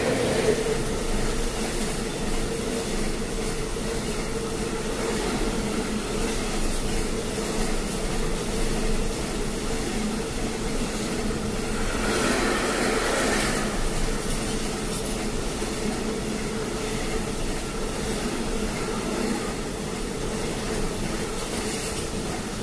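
PKP Cargo ET22 electric locomotive passing close by, then a long container train of flat wagons rolling past: a steady rumble of wheels on rail with a droning tone throughout. There is a brief harsher, higher-pitched stretch about halfway through.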